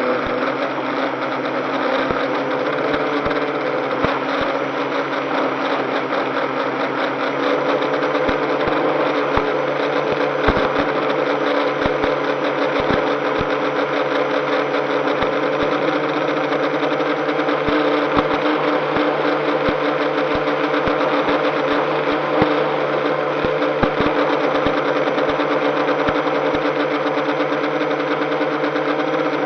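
Multirotor drone's electric motors running steadily at low throttle during a descent, a steady multi-tone whir with scattered light clicks.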